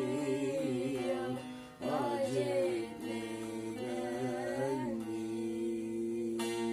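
Music with a singing voice: a wavering, ornamented melodic line that breaks off once, then settles into a long held note.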